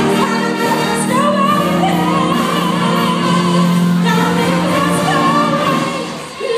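Female vocalist singing over a full concert band of brass and woodwinds, her voice gliding above sustained band chords. The music drops briefly in volume near the end.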